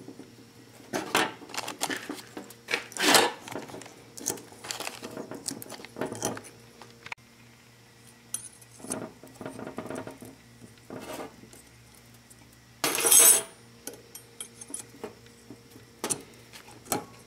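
Thin metal brake pad clips clinking and rattling as they are pulled off and fitted onto a steel disc brake caliper bracket: a string of light, irregular metallic clicks, the loudest about 13 seconds in.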